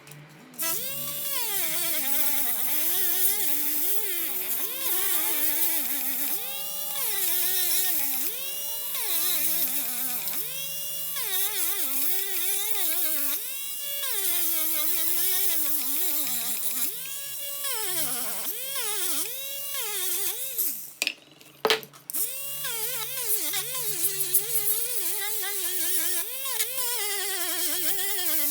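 A small high-speed electric power tool runs with a whine that keeps rising and falling in pitch, as its motor slows and picks up again under changing load. It cuts out briefly about 21 seconds in and then starts again.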